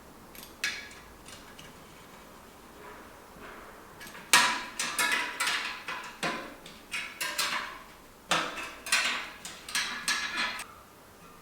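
Metal tools and bicycle parts clinking and knocking together. A couple of light clicks come first, then from about four seconds in a quick run of about a dozen sharp metallic knocks, each with a short ring. The first knock is the loudest.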